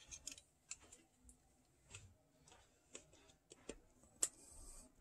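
Faint, scattered clicks and taps of fingers handling the cassette deck's plastic mechanism, circuit board and ribbon cables, about half a dozen at irregular intervals; the sharpest comes about four seconds in.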